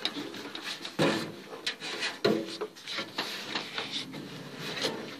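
Rubbing and rustling close to the microphone, with irregular light knocks: the phone being handled and brushing against clothing. The strongest knocks come about a second in and again a little after two seconds.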